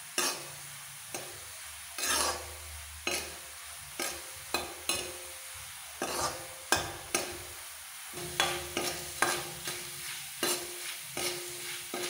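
A steel spoon scraping and clinking against a steel kadhai as small pieces of wheat dough are stirred while they fry golden brown in ghee. The scrapes come irregularly, about one or two a second, over a faint steady sizzle.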